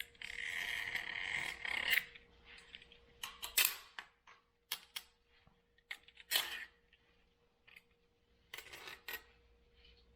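Old window screen being cut and torn out of the spline channel of an aluminum screen frame, where it is stuck fast: a rasping scrape about two seconds long, then scattered short scrapes and clicks.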